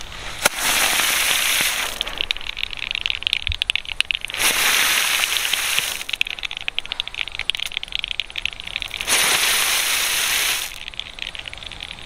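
Small heart-shaped ground fireworks going off one after another: a sharp pop about half a second in, then three loud hissing spurts of about a second and a half each, with dense crackling throughout.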